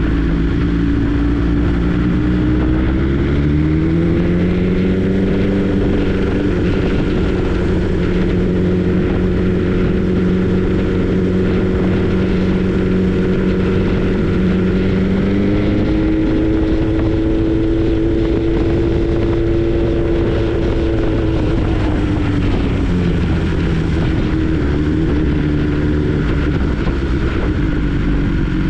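BMW S 1000 R's inline-four engine running under way on the road. Its pitch rises about three seconds in, holds, rises again about halfway through, then drops back down a few seconds before the end.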